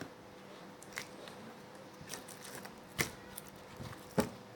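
Homemade glue-and-activator slime being squished and pulled by hand, giving a few soft sticky clicks and pops, three of them louder, over a faint steady hum.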